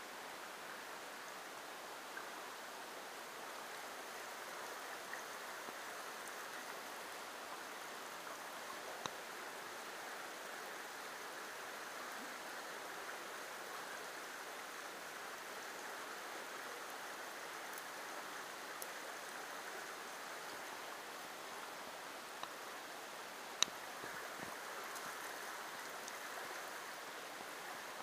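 Small creek water running steadily over rocks in a shallow riffle, a continuous babble. A few small clicks sound over it, one sharper click about three-quarters of the way through.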